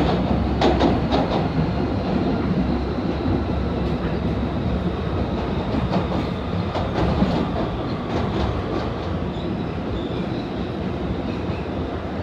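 A PATH PA-5 subway car running through a tunnel, heard from inside the car. There is a steady rumble of wheels on rail, with a few sharp clicks near the start.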